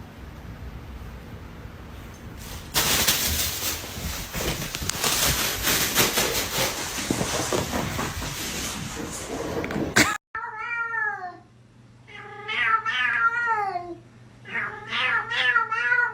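A cat meowing repeatedly, about five drawn-out meows with wavering pitch in the last six seconds. Before them comes a loud stretch of hissy, crackling noise with no clear source, which cuts off abruptly.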